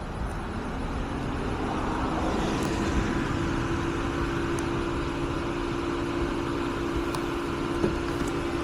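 Electric key-cutting machine motor spinning up about a second in and then running at a steady pitch while a spare key is cut.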